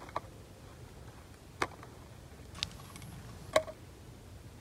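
Four sharp clicks and taps of small hard objects, such as tools or phone parts, being handled on a hard work surface, spaced about a second apart, with the loudest near the end.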